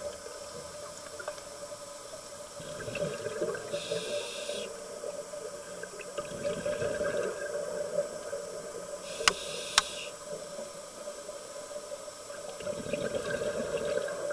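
Underwater sound of a diver's breathing: a swell of bubbling from each exhaled breath every few seconds, with short hisses of the regulator between them, over a steady hum. Two sharp clicks come about two-thirds of the way through.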